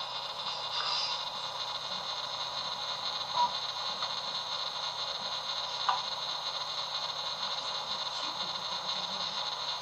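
Hiccups: two brief, sudden hiccups, the first about a third of the way in and the second about two and a half seconds later, over a steady hiss.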